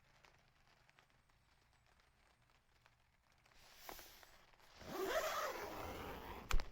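Quiet, then a rasping rustle lasting about a second and a half near the end, finished by a sharp click.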